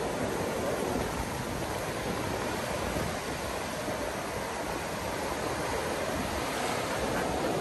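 Surf washing onto a sandy beach: a steady, even rushing of breaking waves and foam.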